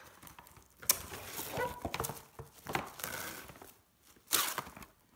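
Handling noises: rustling with a sharp knock about a second in and a louder rustle near the end.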